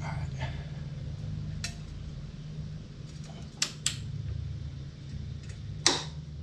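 Click-type torque wrench being pulled on a motorcycle swingarm pivot nut: a few sharp metallic clicks, the loudest about six seconds in as the wrench breaks over at its set 69 foot-pounds. A steady low hum runs underneath.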